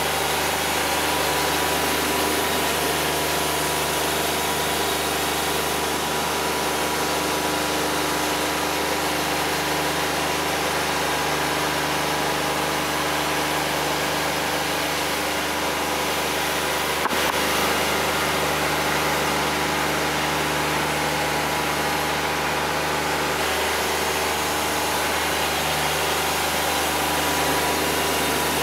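Wood-Mizer LT50 Wide portable sawmill's engine running steadily, with one sharp click a little past the middle.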